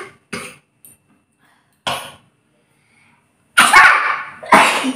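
A series of sneezes, brought on by tickling the nose: a small one just after the start, another about two seconds in, then two loud sneezes in quick succession near the end.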